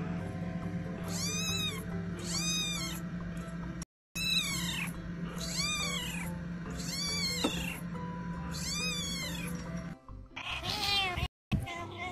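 Tabby kitten meowing again and again in short, high-pitched squeaks, each rising and falling in pitch, about one a second. Near the end come a quicker cluster of louder meows.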